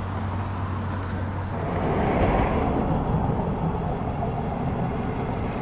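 Road traffic: a vehicle passing on the road, its engine and tyre noise swelling about two seconds in and then fading back to a steady rumble.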